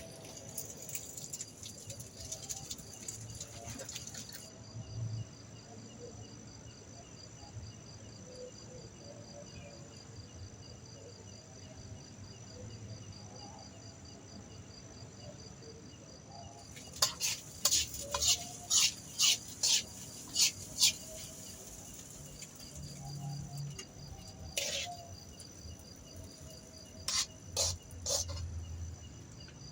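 Crickets chirring steadily, high-pitched. Partway through comes a quick run of about eight sharp clicks, and a few more follow near the end.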